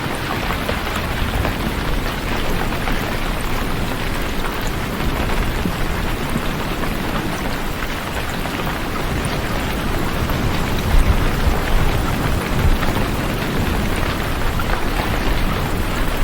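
Steady heavy rain falling, a continuous even hiss, with a few slightly louder low swells after the middle.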